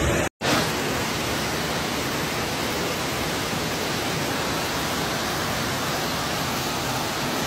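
Rushing floodwater: a steady, even roar of a fast torrent, which cuts out for a split second about a third of a second in and then runs on unchanged.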